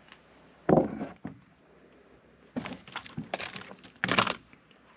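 Short scuffs and knocks of someone moving about and handling a manual tire changer, the loudest about a second in and again near the end, over a steady high chorus of crickets.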